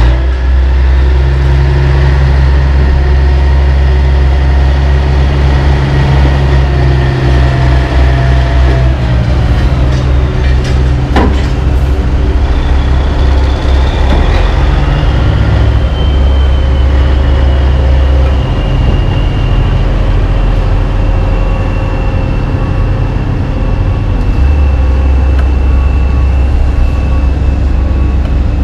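Heavy diesel engines of a tandem-axle dump truck and an asphalt paver running steadily while the truck raises its box to tip asphalt into the paver. A single sharp knock about 11 seconds in.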